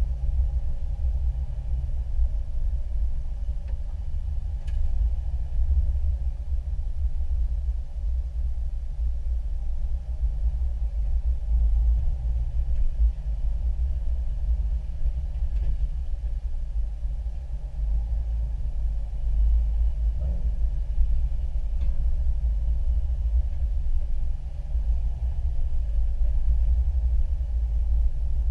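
Off-road 4x4 driving along a rough dirt trail, heard from inside the cabin: a steady low rumble of engine, drivetrain and tyres over the ground.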